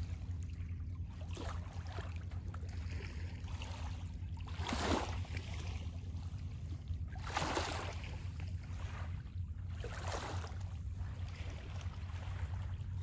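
Small waves washing gently on a calm bay shore, a soft wash every two to three seconds over a steady low rumble.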